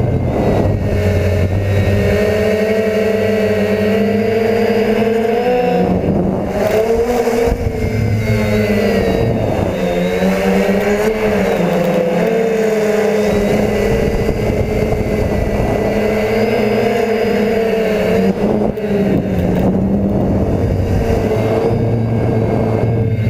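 DJI F450 quadcopter's motors and propellers whining, heard from the GoPro on board, the pitch sliding up and down as the throttle changes. There is a steady rush of wind noise underneath.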